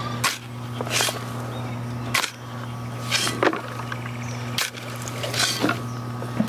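A metal shovel scraping into a pile of loose, dry soil and tossing it onto wooden boards, about one short scrape a second, over a steady low hum.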